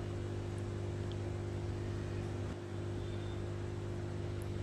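Steady electrical hum with a faint hiss, holding even throughout.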